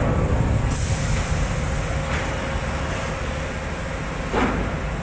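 Gottwald HMC 5506 harbour mobile crane running, a loud, steady low rumble with a faint steady hum. A short rising sound comes about four seconds in.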